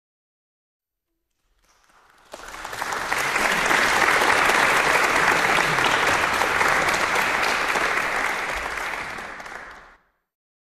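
An audience applauding with steady, dense clapping that fades in after a moment of silence and fades out shortly before the end.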